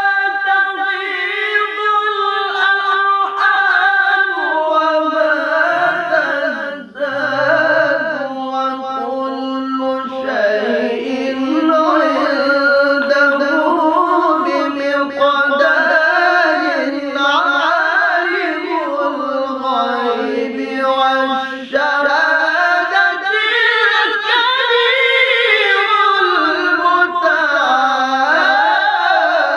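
Two men singing together in the melismatic style of Quran reciters (qari), long held notes that waver and wind slowly up and down in pitch.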